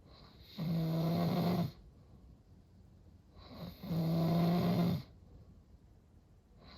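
A man snoring very loudly: two long snores, each with a steady low buzzing pitch, about three seconds apart. The snoring comes from obstructive sleep apnea, which a sleep test found to be fairly severe.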